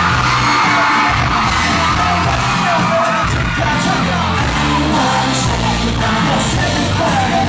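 Live rock band playing through a hall's sound system: electric guitars, bass and drums, with a male voice singing into the microphone and fans screaming over the music.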